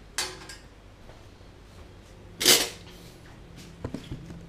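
A metal clink with a brief ring as a slotted steel skimmer is set down in a steel saucepan, then a short, louder scrape about two and a half seconds in and a couple of light knocks near the end.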